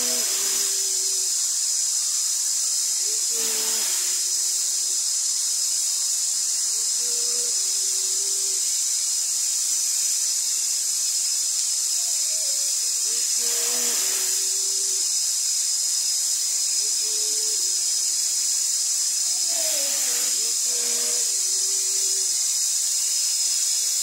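Waterfall rushing with a steady high hiss. Over it, a short, low two-note call, a higher note dropping to a lower one, repeats about every three to four seconds.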